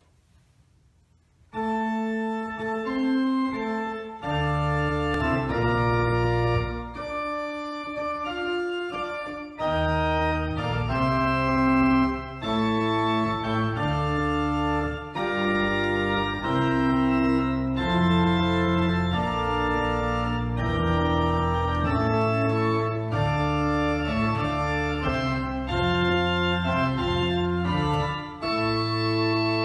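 Church organ played: sustained chords over a low bass line, changing every second or so, starting about a second and a half in.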